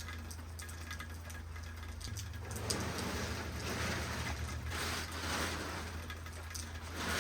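Rain falling, with scattered drop clicks, growing louder about two and a half seconds in and swelling in waves over a steady low hum.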